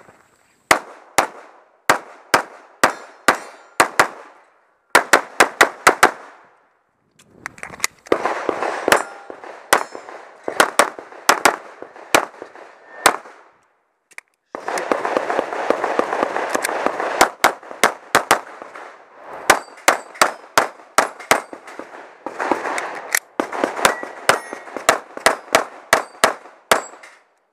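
Pistol shots fired in rapid strings, several shots a second, broken by short pauses of a second or two, with a steady rushing noise between some of the strings.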